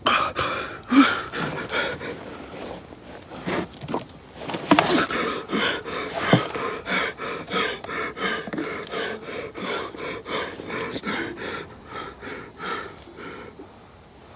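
A badly wounded man breathing hard and raggedly, quick gasping breaths about three a second.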